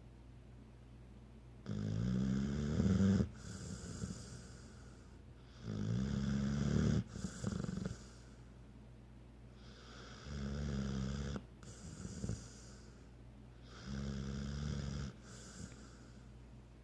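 Snoring: four long snores about four seconds apart, each a pitched drone lasting a second or so, with short, ragged breaths between them.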